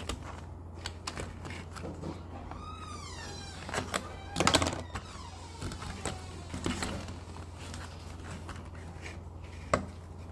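Plastic parts of a Hot Wheels Stunt and Splash Car Wash playset being handled and fitted together: scattered clicks and knocks, a short plastic squeak about two and a half seconds in, a louder clatter around four and a half seconds, and a sharp click near the end, over a steady low hum.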